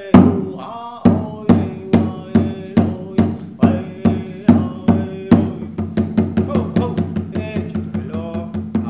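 A man singing a traditional Wopila (thank-you) song while beating a hand drum about twice a second. About five seconds in, the drumbeat quickens into faster, softer strokes, and the drum stops near the end.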